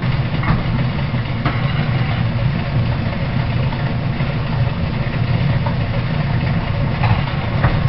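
Antique Gray metal planer running under power, its table stroking back and forth while the tool takes a cut: a steady machine hum with a few faint knocks.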